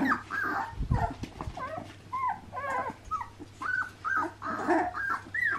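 Four-week-old cocker spaniel puppies whining and whimpering, many short high cries overlapping from several pups at once. A dull low thump comes about a second in.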